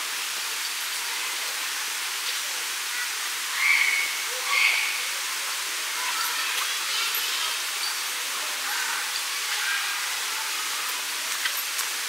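Steady rushing hiss of cascading water at the Nang Manora waterfall, with two short high chirps a little under a second apart, about four seconds in.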